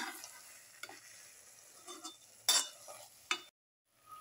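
A ladle stirring chicken pieces into a frying onion-tomato masala in a steel pot, with a few sharp scrapes of the ladle against the pot over a light sizzle.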